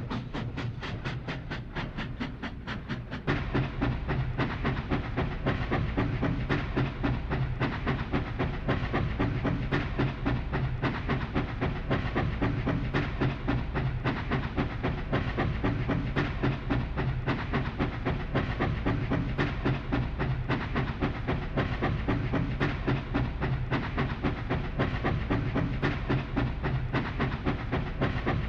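Steam locomotive sound effect: an engine running with rapid, even chuffing and rail clatter. About three seconds in, it gets louder and a steady low hum joins it.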